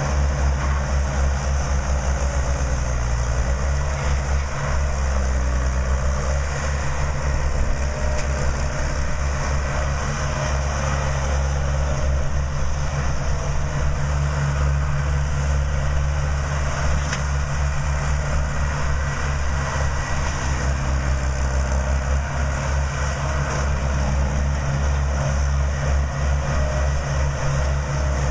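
A farm machine's engine running steadily, its deep low hum unchanging throughout.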